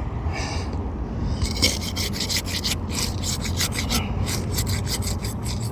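A thin flat shingle-unsealing tool scraping under asphalt roof shingles, cutting through the tar sealant strip in quick repeated strokes that start about a second and a half in. A steady low rumble runs underneath.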